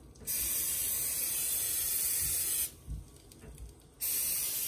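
Aerosol cooking spray hissing out of the can in two bursts. The first lasts about two and a half seconds; the second starts about four seconds in.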